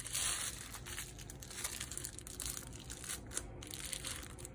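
Packaging crinkling and rustling as parts are unwrapped by hand, in an uneven run of crackles, a little louder at the start.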